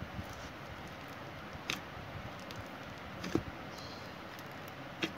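Fingers poking and squishing thick slime with sprinkles and Fimo slices in a plastic tub, giving three small sharp pops about a second and a half apart over a faint hiss.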